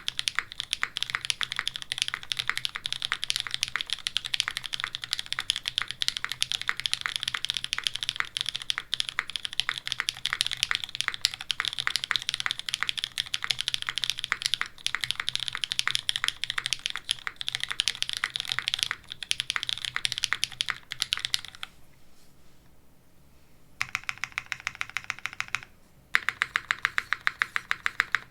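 Mechanical keyboard with lubed, filmed linear switches (Cherry MX Black Hyperglide housings, Kailh black stems) on an undampened aluminium plate under GMK keycaps, typed on quickly in a steady stream of keystrokes. About three quarters of the way through the typing stops for about two seconds, then resumes, ending in a run of evenly spaced, sharper keystrokes.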